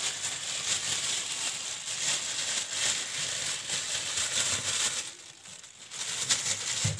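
A thin plastic freezer bag crinkling and rustling as whole peeled oranges are packed into it by hand. The noise dips briefly about five seconds in, then picks up again.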